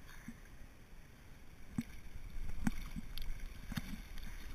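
River water lapping and gurgling around an inflatable float drifting downstream, over a low steady rumble, with a few short splashes in the second half.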